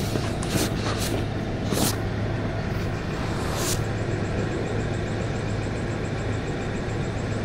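Steady night-time background noise with a constant low hum, and a handful of short rustles in the first four seconds from a person moving around inside a dome tent. A faint, fast, high ticking runs on in the second half.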